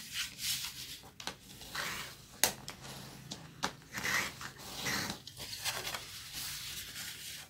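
Paper being folded and creased with a plastic bone folder: rubbing strokes of the folder along the fold and paper rustling as it is handled, with a few sharp taps, the loudest about two and a half seconds in.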